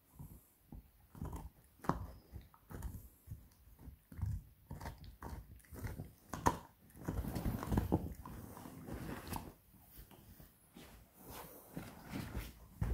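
Beagle puppy gnawing a pork bone: irregular crunches and clicks of teeth on bone, thickest about halfway through.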